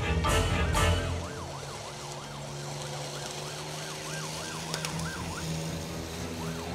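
Electronic siren sounding a fast yelp, its pitch sweeping up and down a few times a second for about four seconds, after music cuts off about a second in.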